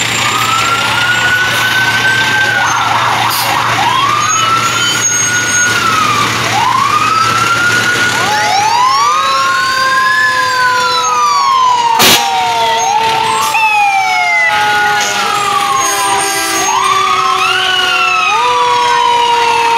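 Several fire engine sirens wailing at once, their pitches rising and falling and overlapping. From about halfway a second siren's long, slowly falling tone joins and jumps back up every few seconds. A single sharp crack comes midway.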